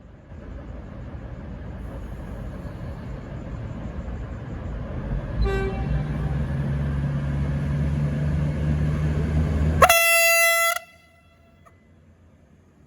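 V/Line VLocity diesel railcars departing, their engine and rail noise building steadily. A brief horn toot comes about halfway through, then a loud horn blast of about a second near the end that cuts off suddenly.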